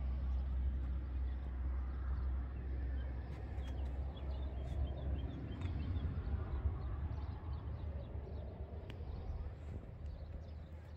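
SEAT Ateca 1.5 TSI four-cylinder petrol engine idling, a low steady rumble that eases off slightly toward the end, with light handling clicks.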